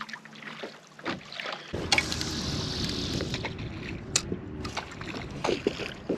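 Wind buffeting the microphone and water sloshing around a kayak at sea, picking up about two seconds in, with a few short sharp clicks.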